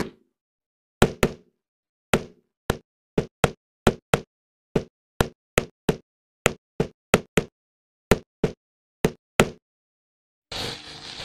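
A run of about twenty short, sharp knock sound effects, roughly two a second and unevenly spaced, with silence between them, as in a letter-by-letter text animation. Faint hiss begins near the end.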